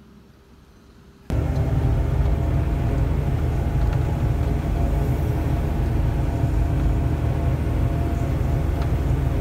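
Wheeled excavator's diesel engine running steadily under way, heard from the operator's seat: a loud, even low drone that cuts in suddenly a little over a second in, after a quiet start.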